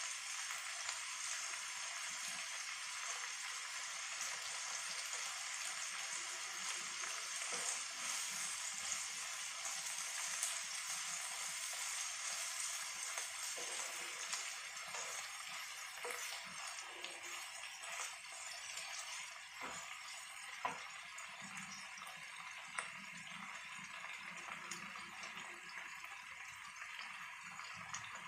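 Chopped onions and bell peppers sizzling steadily in hot oil in a frying pan, stirred with a wooden spatula, with two sharp clicks about two-thirds of the way through.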